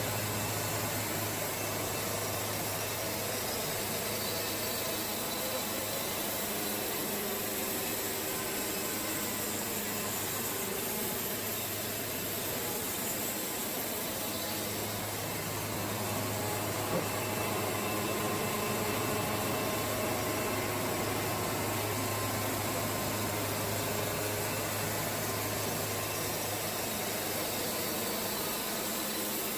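Portable band sawmill's engine running steadily at a constant speed, with a continuous even hum throughout.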